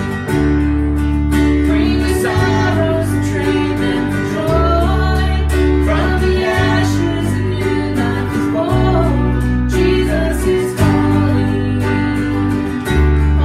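Contemporary worship song: a woman singing over a strummed acoustic guitar, an electric keyboard and a bass guitar.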